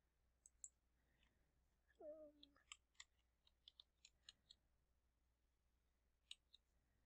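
Faint computer keyboard typing: a dozen or so scattered key clicks, most of them in a quick run through the middle, as a word is typed. A brief faint hum of a voice about two seconds in.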